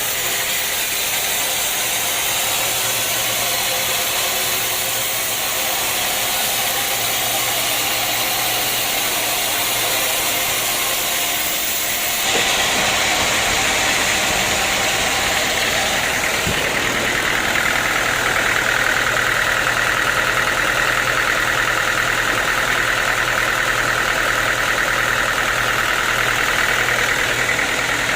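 Sawmill machinery running steadily. The sound grows louder about 12 seconds in, and a steady higher whine joins about 17 seconds in.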